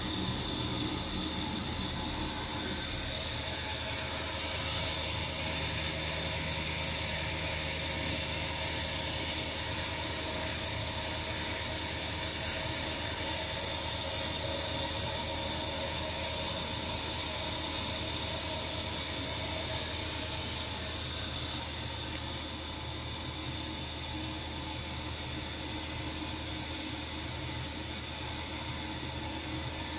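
Hurco five-axis CNC machining centre running a program, a long-reach tool milling a light chamfer in an Inconel block: a steady machine whine over an even hiss and low hum, easing slightly about two-thirds of the way through.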